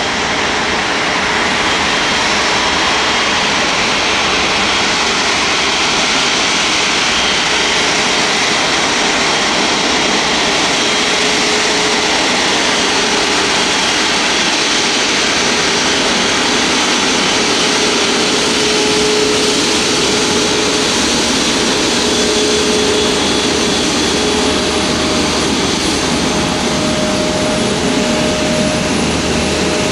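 Airbus A350-900's Rolls-Royce Trent XWB turbofan engines running at taxi power as the airliner taxis past: a steady jet rush with faint steady tones in it.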